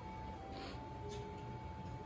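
Background music: a slow, simple melody of plain held notes, with two brief soft hissy sounds near the middle.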